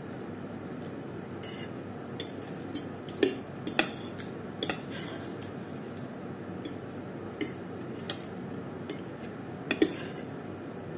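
Metal fork and spoon clinking and scraping against a plate of fried noodles in irregular sharp clicks, a few louder clinks about three to four seconds in and again near the end, over a steady background noise.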